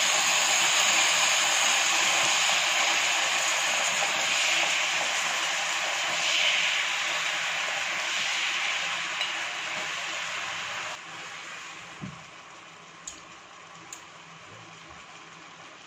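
Teriyaki sauce sizzling hard in a hot frying pan around a piece of fried chicken, a steady loud hiss. About eleven seconds in it drops abruptly to a quieter bubbling simmer, with a few light clicks of tongs against the pan.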